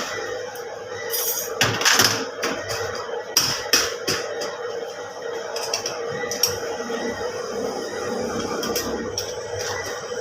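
Metal clinks and knocks of tools on diesel injection pump parts: a cluster of sharp clinks in the first four seconds and another a little past the middle, over a steady machine hum.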